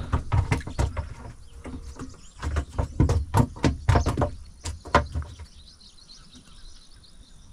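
Irregular knocks and thumps in the boat as a freshly caught red piranha is handled and flops about, stopping after about five seconds. Faint bird or insect chirping continues afterwards.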